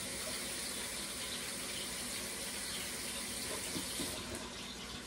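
Kitchen sink tap running as hands are washed under it, a steady rush of water that stops about four seconds in.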